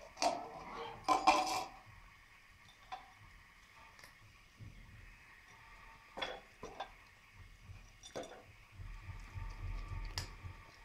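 Disposable plastic cups and saucers clattering against each other on a tiled floor: a loud burst of knocks and clinks in the first two seconds, then single light knocks about every two seconds.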